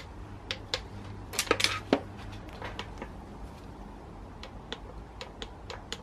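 Ratchet of a torque wrench clicking in short, irregular runs as the high-pressure fuel pump bolts on a BMW N47 diesel engine are tightened, with a few light metal clinks.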